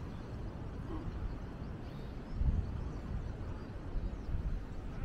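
Gusty low rumble of wind buffeting the microphone, swelling louder about two and a half seconds in.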